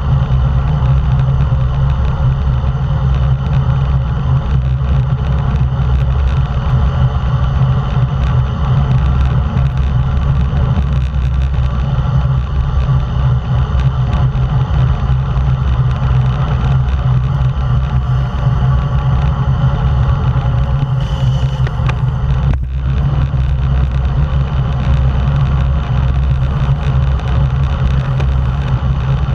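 Wind rushing over an action camera's microphone on a road bike moving at racing speed: a loud, steady low rumble with road noise from the bike.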